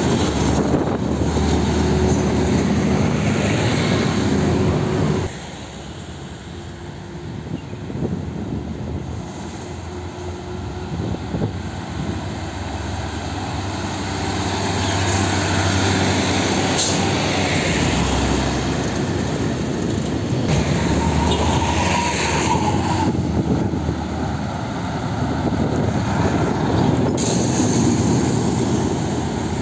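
Heavy diesel trucks passing close by one after another, tractor-trailers and a tanker truck among them: engines running and tyre noise swelling as each goes by. The sound drops suddenly about five seconds in, then builds again as the next trucks come past.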